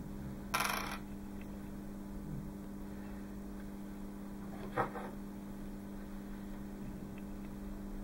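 Small metal airsoft chamber parts handled on a wooden tabletop over a steady low hum: a short scrape about half a second in, then a single light metallic clink near five seconds as a metal piece is set down.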